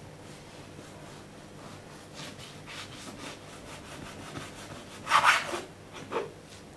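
Kitchen knife slicing through dried cured beef (pastırma) on a wooden cutting board, in a series of short scraping strokes of the blade through the meat and against the board. The loudest stroke comes about five seconds in.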